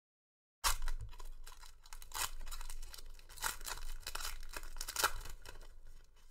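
Foil wrapper of a 2019 Rookies & Stars football card pack being torn open and crinkled by hand: a dense run of sharp crackles and rips that starts about half a second in.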